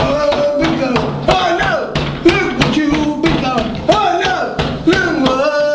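Music with a fast, steady beat, about three strikes a second, and a voice wailing in sliding pitches over it.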